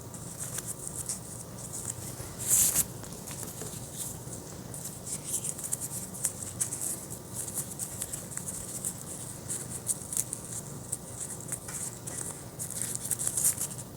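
Light, busy rustling and scratching of ribbon and cloth being handled while a ribbon is tied around the end of a homemade catnip-filled cat toy, with one louder rustle about two and a half seconds in.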